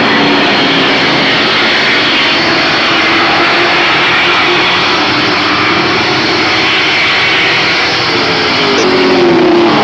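Pack of short-track race trucks running at racing speed, a loud, steady mass of engine noise. Near the end one truck passes close by, its note falling in pitch as it goes past.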